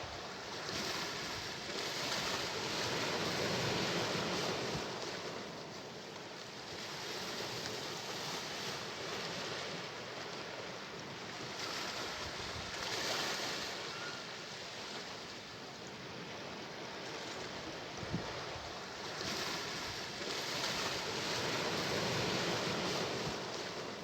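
Sea waves washing onto the shore, the surf rising and falling in slow swells several seconds apart. A brief low thump comes about three-quarters of the way through.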